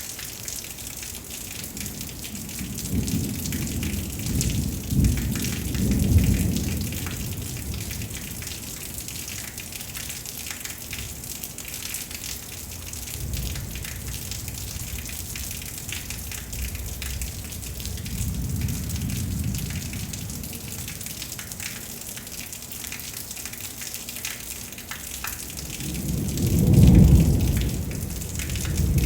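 Steady rain hissing, with low thunder rumbles swelling and fading several times; the loudest rumble comes near the end.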